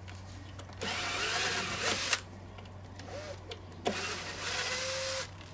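Electric screwdriver running in two bursts of about a second and a half each, backing screws out of wooden wall boards; the second burst holds one steady motor pitch.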